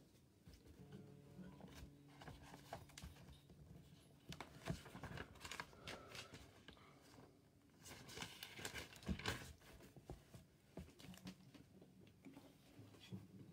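Faint handling noise: scattered light clicks and rustles as someone moves about and handles things close to a laptop microphone, busiest around the middle and about eight to nine seconds in.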